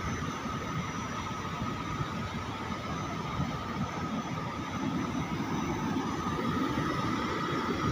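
Steady rushing machinery noise with a faint, even high whine.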